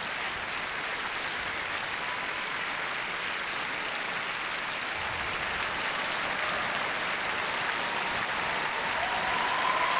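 Audience applauding steadily, swelling a little louder over the last few seconds.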